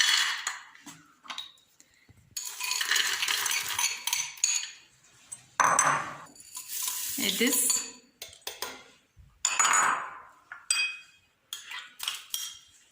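Chickpeas and then lentils tipped into a cooking pot, rattling against it in several long pours, followed by short clinks and scrapes of a spoon and dishes.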